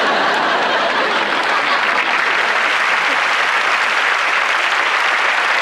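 Sitcom studio audience applauding, a steady dense clapping.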